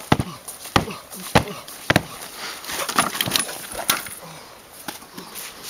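A run of sharp impacts from wrestlers' blows and slams in a backyard brawl. There is about one knock every half second for the first two seconds, a cluster near three seconds, and one more just before four seconds, when a wrestler goes down onto the ground.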